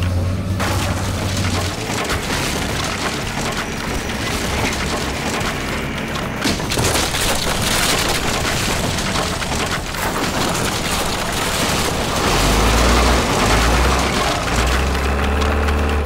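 Excavator demolishing an old wooden building: continuous cracking and splintering of timber with crashing debris, growing denser about halfway through. A deep rumble joins near the end.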